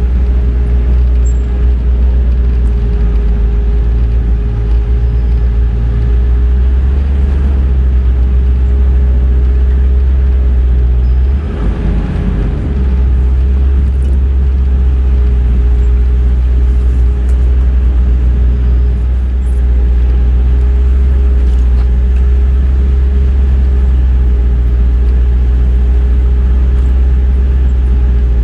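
Land Rover Discovery II engine running at a steady speed: a loud, deep drone with a constant hum above it. The drone briefly changes about twelve seconds in.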